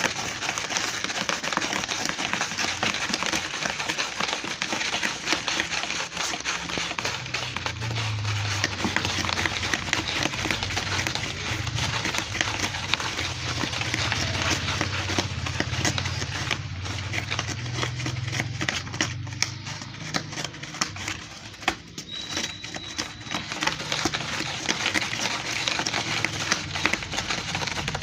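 Cat scratching with its claws: a dense, continuous run of scratchy clicks, with a low hum underneath for a stretch in the middle.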